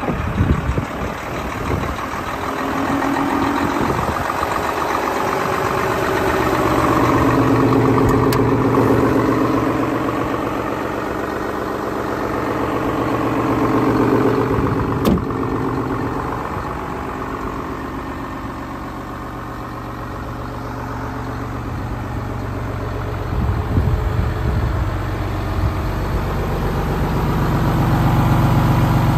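Renault T430 truck's 11-litre six-cylinder diesel engine idling steadily, its level swelling and fading gently over the span.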